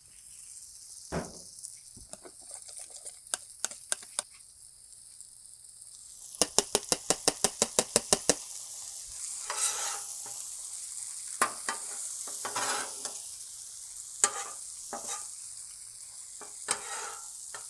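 Kielbasa, onions and pierogies sizzling on a hot Blackstone flat-top griddle after liquid has been poured on. Partway through comes a quick run of about a dozen even taps, then metal spatulas scrape and toss the food across the griddle plate several times.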